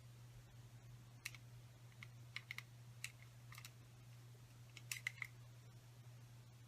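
Quiet room tone over a low steady hum, broken by about ten light, sharp clicks in small clusters near the middle, from hair-styling tools such as a clip, comb or curling iron being handled.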